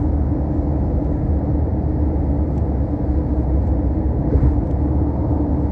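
Steady low rumble of a car in motion, heard from inside the cabin: road and engine noise with a constant hum.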